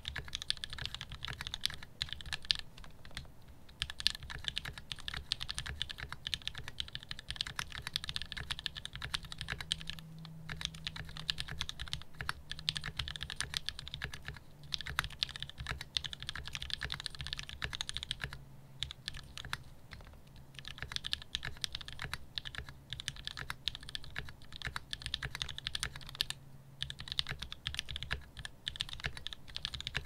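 Fast, continuous typing on a CannonKeys Practice 60 mechanical keyboard with Gateron Milky Yellow linear switches in an FR4 plate: a dense run of keystroke clacks, broken by a few brief pauses.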